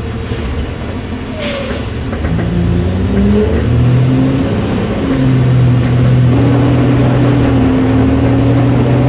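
Garbage truck's engine heard from inside the cab, pulling away: its pitch climbs for a second or so after about two seconds, then it runs steady and louder under load. A short hiss about a second and a half in.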